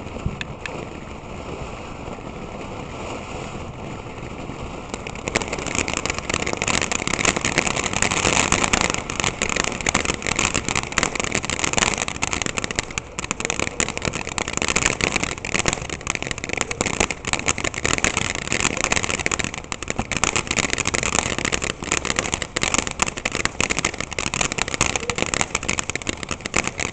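Ground fountain firework hissing as it sprays sparks. About five seconds in it grows louder and breaks into dense crackling, which continues to the end.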